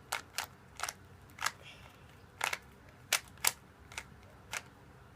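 Rubik's cube being twisted: the plastic layers clack about nine times at an uneven pace as the faces are turned.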